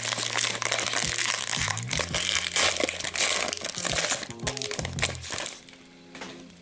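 Shiny wrapper of a Panini Prizm trading card pack crinkling as it is torn open and peeled back by hand, dense crackling that dies away about five and a half seconds in. Background music plays underneath.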